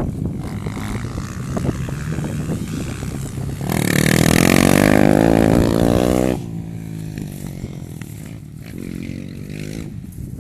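Honda trail motorcycle's single-cylinder four-stroke engine running and revving. It is much louder for about two and a half seconds from about four seconds in, with its pitch wavering up and down.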